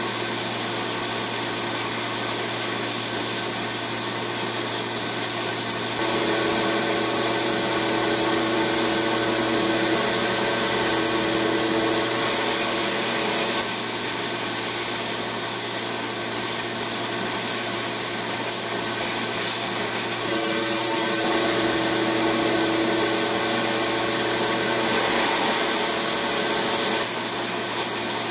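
Abrasive blast cabinet running with a steady hiss and hum, while the blast gun fires in two long bursts of about seven seconds each, stripping old paint off pressed-steel toy truck parts. Each burst is louder, with a steady whistle over the rush of air and grit.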